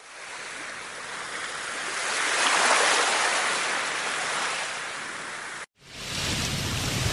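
A rushing noise like surf, swelling to its loudest about three seconds in and easing off, then cutting off abruptly near the end. A lower rumbling noise follows it.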